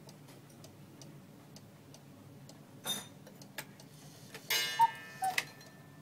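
Cuckoo clock ticking while its minute hand is turned by hand, with a sharp click about halfway. Near the end the mechanism whirs and gives a two-note cuckoo call, high then low.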